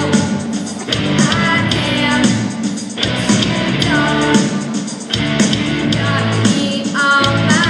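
Pop-rock music with a singing voice over guitar and a steady beat.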